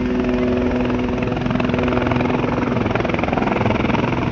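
A helicopter flying low over the water with a water bucket slung beneath, just after filling it: a steady, rapid rotor chop over the spray of the downwash. A steady engine whine under the chop fades out a little past halfway.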